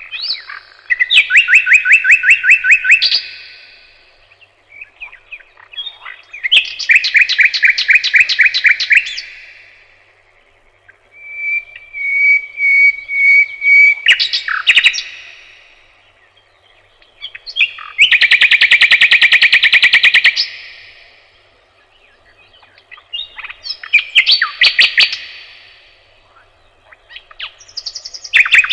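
A songbird singing loud, varied phrases of rapid repeated notes. There are six phrases, each a few seconds long, with short pauses between them.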